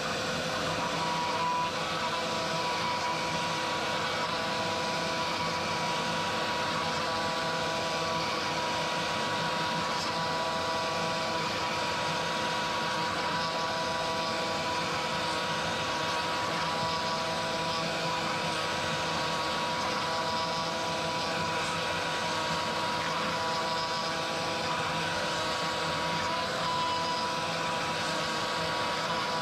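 Genmitsu ProVerXL 4030 CNC router spindle running steadily while the bit mills a pocket in maple plywood. Motor tones switch on and off every second or two as the gantry sweeps back and forth across the pocket.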